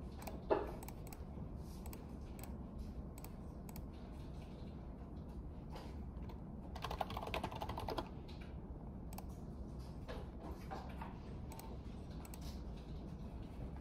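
Computer keyboard typing and mouse clicking: scattered clicks, one sharp click about half a second in, and a quick run of keystrokes a little past the middle, over a low steady office hum.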